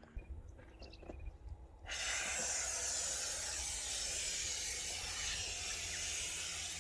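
Expanding foam sprayed from a pressurised can along a panel joint: a steady hiss that starts abruptly about two seconds in and runs for about five seconds.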